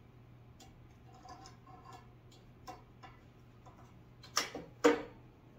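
Light clicks and taps of grooming-table parts being handled and fitted, then two sharp clicks about half a second apart near the end.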